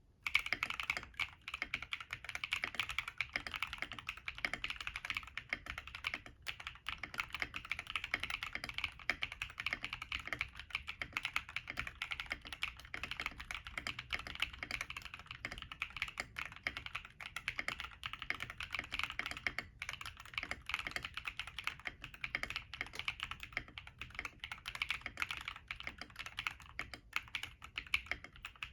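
Continuous fast typing on a mechanical keyboard with linear Akko Cream Yellow Pro switches, FR4 plate, stacked acrylic case and MT3-profile PBT keycaps: a dense stream of keystroke clacks, with a couple of brief pauses.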